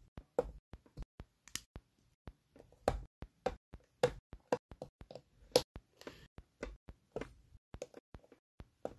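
Plastic LEGO bricks clicking and tapping as they are handled and pressed together: a run of sharp, irregular clicks, a few a second, with a louder snap about three seconds in and another about five and a half seconds in.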